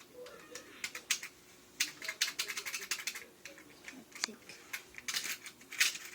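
Sharp plastic clicks and taps of a Lego-brick penny dispenser being handled and worked, scattered at first and coming thicker near the end.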